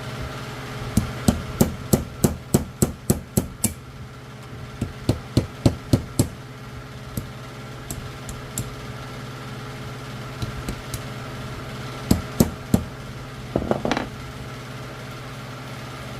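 Hammer tapping a new main seal into a Chrysler A-518/46RH transmission's front pump: a quick run of light, sharp taps about three a second, then scattered taps and a short cluster near the end. The seal is not starting in straight and resists being driven in.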